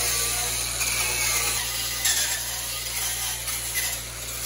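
Cordless angle grinder with a wire cup brush running steadily against steel weld beads, its motor whirring under the scratchy noise of the wires scrubbing the metal clean.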